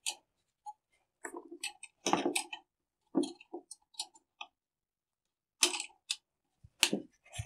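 Pliers clicking and scraping on the thin wire hangers of a wooden orchid basket: a scatter of short, sharp clicks and small rattles, with a pause of about a second near two-thirds of the way through.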